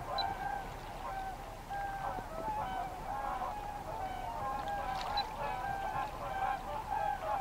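A flock of waterfowl calling continuously, with many short, overlapping calls.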